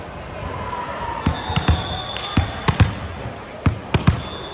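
Basketball bouncing on a court during a game, about nine irregular thuds, some in quick pairs, with high sneaker squeaks over them from about a second in.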